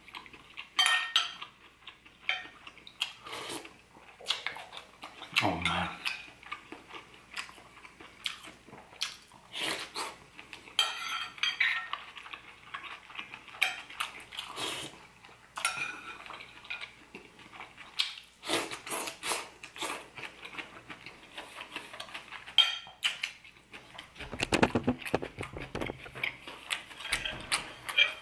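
Metal spoon repeatedly clinking and scraping against a ceramic soup bowl at irregular intervals, with eating sounds of pozole broth being spooned into the mouth and chewed in between.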